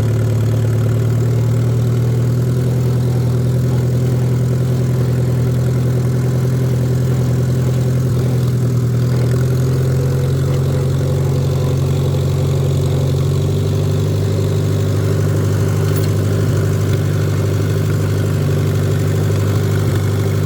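Gasoline tractor engine running steadily at an even speed while the tractor drives along in second gear.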